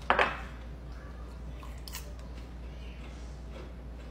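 Popcorn being handled in a small bowl: a short loud rustle right at the start, then faint light clicks and rustles as fingers pick through the pieces.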